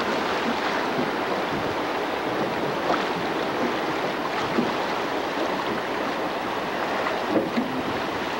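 River water rushing and splashing through a riffle around a drift boat: a steady wash of water noise, with a few light knocks.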